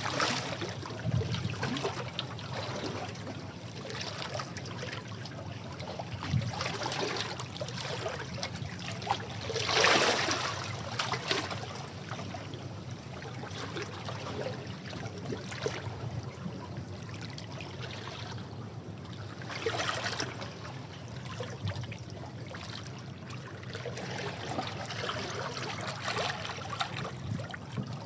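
Sea waves washing and splashing against rocks, with a louder surge about ten seconds in and another near twenty seconds.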